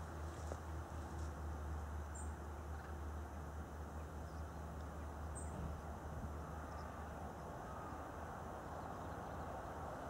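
Distant steam locomotive, BR Britannia-class Pacific 70013 Oliver Cromwell, working hard across the valley, heard as a steady low rumble. A bird gives two short high chirps, about two and five seconds in.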